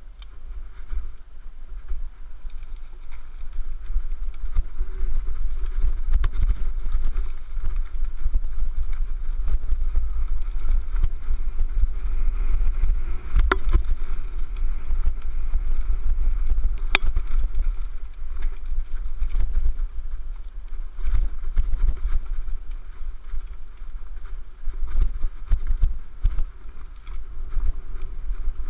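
Wind rumble and jostling on a helmet-mounted GoPro's microphone while riding a mountain bike along a leaf-covered dirt trail. It builds over the first few seconds as the bike gets moving, with a couple of sharp knocks from bumps midway.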